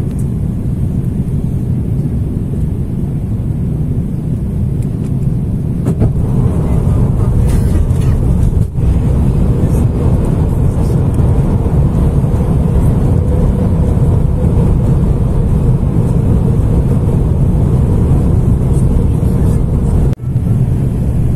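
Steady low rumble of an Airbus A330 airliner heard from inside the cabin: engine and airflow noise. It grows louder about six seconds in and drops out for an instant twice.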